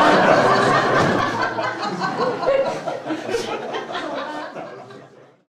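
Several people talking and laughing together, fading out to silence near the end.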